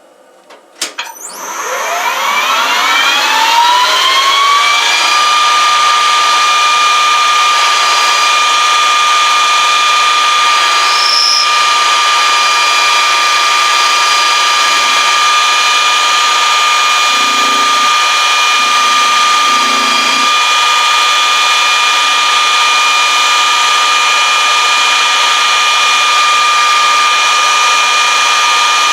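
A small high-speed electric motor starts about a second in, its whine rising in pitch over a few seconds, then runs at a steady, loud high whine.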